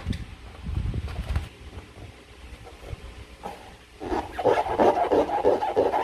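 Slime being squeezed and worked by hand, with soft handling noise at first and then a quick run of squelches, about three a second, in the last two seconds.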